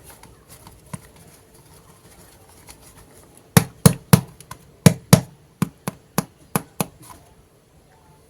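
A quick run of about eleven sharp knocks or taps, roughly three a second, starting about halfway through and stopping near the end.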